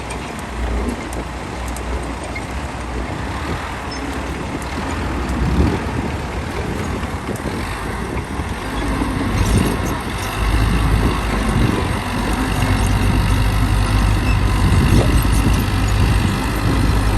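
Heavy vehicle engine running continuously, growing louder and deeper about ten seconds in.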